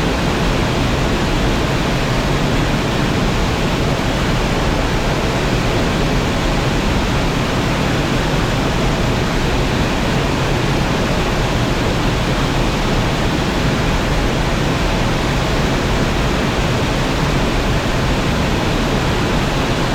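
Waterfall crashing into its plunge pool: a loud, steady, unbroken rush of falling water, full in the low end, with no change over the whole stretch.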